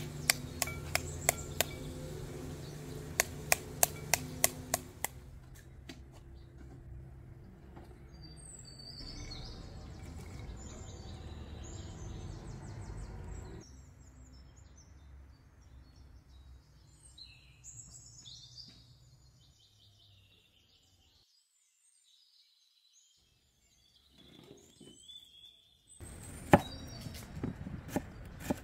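Sharp irregular taps as a knife knocks the seeds out of a halved pomegranate into a glass bowl. Then birds chirping for several seconds, and a short near-silent gap. Near the end, a knife chopping a red onion on a wooden cutting board.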